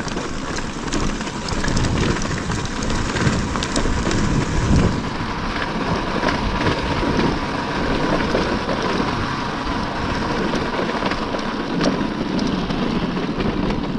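Wind rushing over the microphone of a moving dirt bike, mixed with the engine running and tyres rattling over a stony track.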